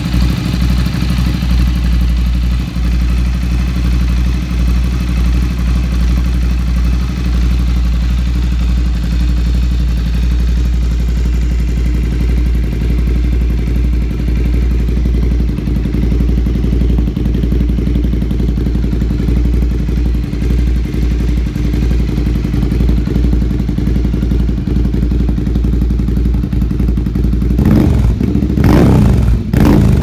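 Ducati Scrambler 803's air-cooled L-twin idling steadily through an Akrapovic titanium slip-on exhaust. Near the end it gets two quick throttle blips that rise and fall back to idle.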